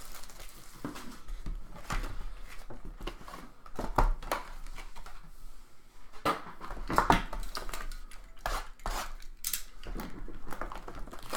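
Irregular clicks, taps and scraping of cardboard trading-card boxes being handled and cut open with a blade, with sharper knocks about four and seven seconds in.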